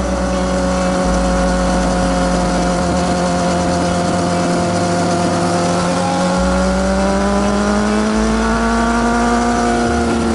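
Sport motorcycle engine running at a steady cruise, its pitch rising gently past the middle and easing off slightly near the end, with a hiss of rushing air and road noise.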